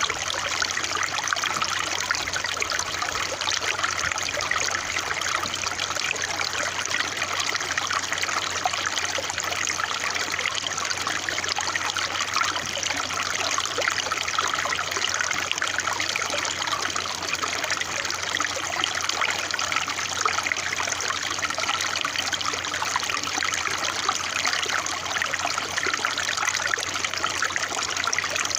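Water trickling and babbling steadily, a continuous splashing rush that does not change.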